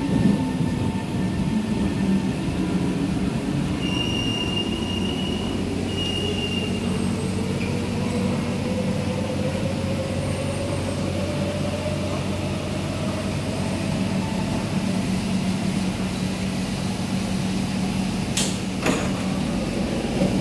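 A Kawasaki C151 MRT train braking to a stop with its motor tones falling, then standing with a steady low hum. Two short high beeps come about four and six seconds in, and a sharp clatter near the end as the doors open.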